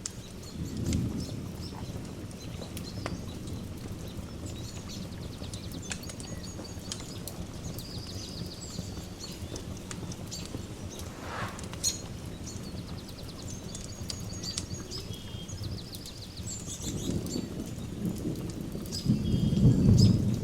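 Ambient nature soundscape: distant thunder rumbles softly about a second in, then swells to its loudest near the end. Birds chirp and trill throughout over a steady hiss with scattered crackles.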